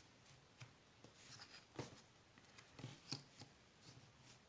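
Faint, scattered clicks and taps of jigsaw puzzle pieces being handled and tried in place, a few times over.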